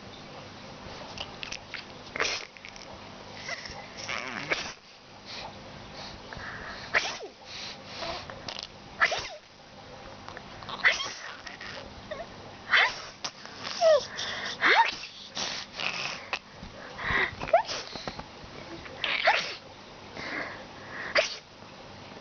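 A person sneezing over and over, with a baby's short high-pitched laughs and squeals coming in between the sneezes.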